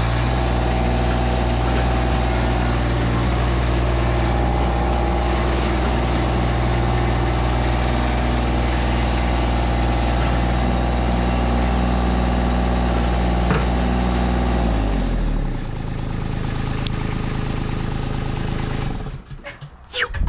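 Ditch Witch mini skid steer engine running steadily at throttle, then throttled down about fifteen seconds in, with its pitch sliding down, and shut off a few seconds later.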